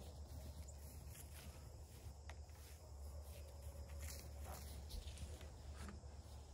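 Quiet outdoor ambience: a steady low rumble with a few faint clicks and footsteps as a person walks past.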